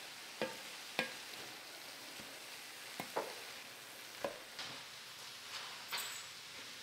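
Vegan lasagna filling of diced vegetables and plant-based mince sizzling in an enamelled pot as a wooden spatula stirs it. The spatula knocks and scrapes against the pot about ten times at irregular intervals, over a steady sizzle.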